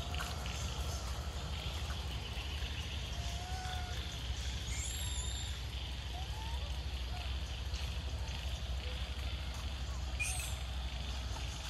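Outdoor ambience with a steady low rumble and scattered faint, short chirping calls from animals, a few rising in pitch.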